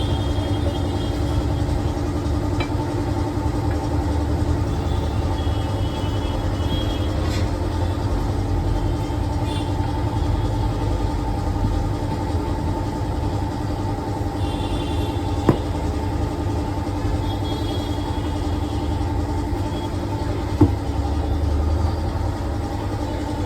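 A machine running with a steady hum, with two sharp clicks, one about two-thirds of the way in and one near the end.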